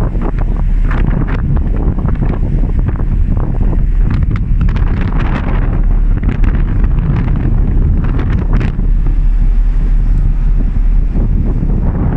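Wind buffeting the microphone on the open deck of a moving ferry: a loud, steady low rumble with irregular gusts.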